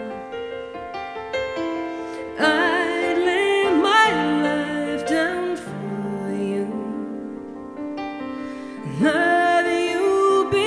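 Live ballad performance: sustained keyboard chords, with a woman's voice singing long, wavering notes. The voice comes in about two seconds in, drops out around the middle, and returns near the end.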